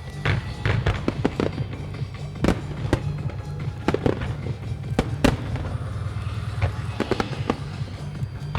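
Aerial firework shells bursting in many sharp, irregular bangs over music played through loudspeakers.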